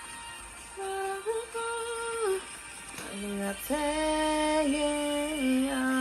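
Music from the fireworks show's soundtrack, with a voice singing long held notes one after another, the last one held for about two seconds.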